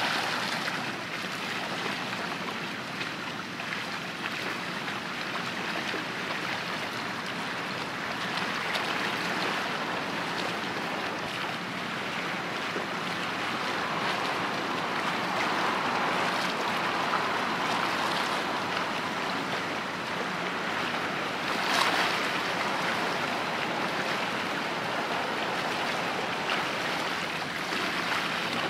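Steady wash of waves and water with some wind on the microphone. A brief sharp click stands out about three-quarters of the way through.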